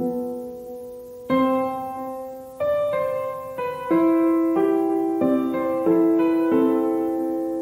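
Background music: a slow, gentle piano piece, chords struck about once a second and left to ring and fade.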